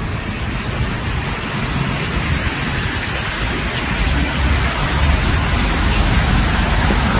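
Steady rushing street noise picked up by a phone microphone, an even hiss over a low rumble that grows a little louder.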